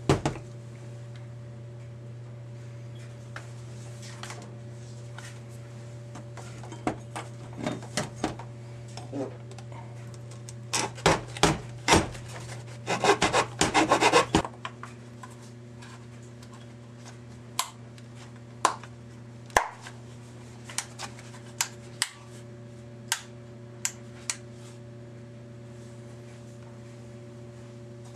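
Plastic center-console trim being handled and worked, with scattered sharp clicks and knocks. About eleven seconds in come some three seconds of rapid rasping strokes of a file on the plastic. A steady electrical hum runs underneath.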